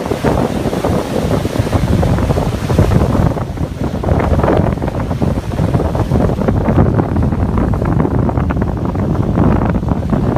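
Wind buffeting the microphone over lake waves breaking and washing against a rocky shore. A higher hiss in the mix dies away about three seconds in.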